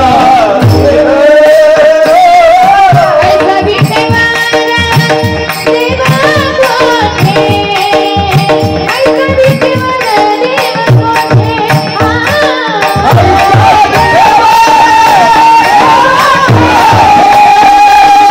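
Women singing a Marathi devotional song with a wavering melody, over steady held accompaniment and a drum beating about twice a second.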